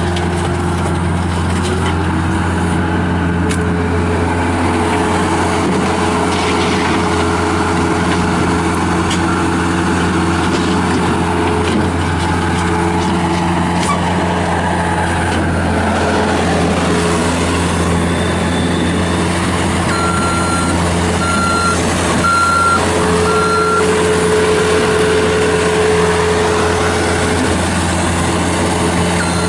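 Bobcat S205 skid steer loader's Kubota diesel engine running steadily, with its backup alarm beeping four times about two-thirds of the way through.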